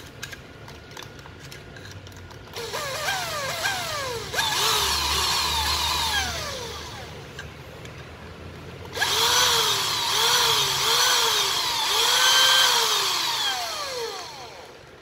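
Black & Decker 7.2 V cordless drill motor test-run in short trigger pulls, its whine rising as it spins up and falling as it slows each time, starting a couple of seconds in and coming in two spells. The drill runs normally.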